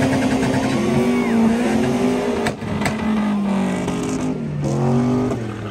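A car engine revving hard as the car drifts in a cloud of tyre smoke, held at high revs and slowly sagging, then dropping and rising again near the end, over a haze of tyre noise. Two sharp cracks about halfway through.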